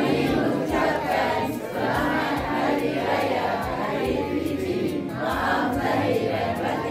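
Many voices of a large family group sounding together, over background music with a steady beat.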